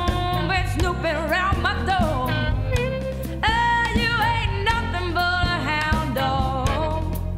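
Blues-rock band music: drums and bass with a bending, wavering melody line sung or played over them.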